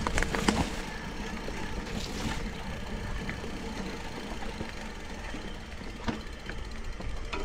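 Mountain bike riding along a dirt track: a steady low rumble of tyres on the ground, with a few clicks and rattles from the bike.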